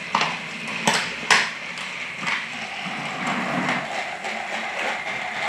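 Battery-powered Thomas and Friends Trackmaster toy train running on plastic track, a steady motor whir with several sharp plastic clicks and knocks, the loudest about a second in.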